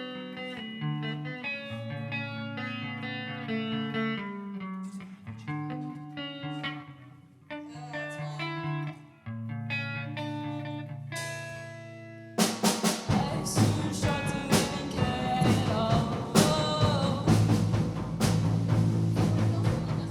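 Band music: a guitar picks out a melody of single notes, then about twelve seconds in the full band comes in, much louder, with drum kit and bass.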